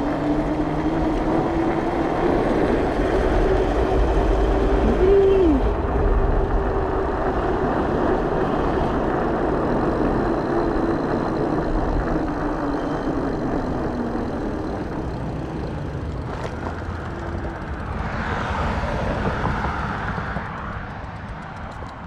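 Fat-tyre electric bike's motor whining under throttle. Its pitch climbs as the bike speeds up, holds, then drops about halfway through as the bike slows, over a steady rush of wind and tyre noise that fades toward the end.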